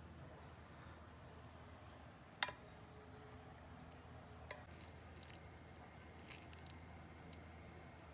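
Near silence: faint room tone with a steady thin high whine, broken by one sharp click about two and a half seconds in and a smaller click about two seconds later.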